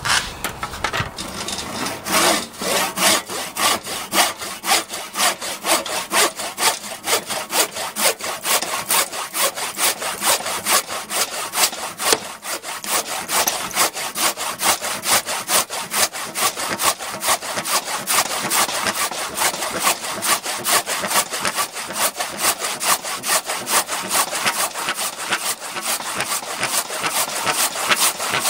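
Bahco 244p XT 22-inch hard-point hand saw cutting through a square timber fence post that is wet through, in a steady rhythm of back-and-forth strokes, about one and a half a second.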